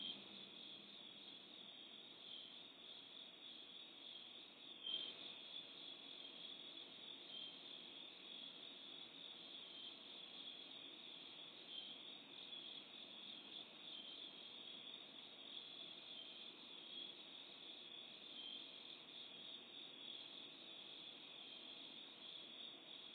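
Crickets chirping steadily and faintly, one unbroken night chorus, heard through a security camera's narrow-band microphone. A single soft click comes about five seconds in.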